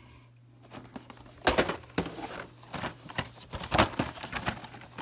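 Toy-car blister packs of plastic on cardboard being handled and set onto a pile, with plastic crinkling and sharp clacks that are loudest about a second and a half in and again near four seconds.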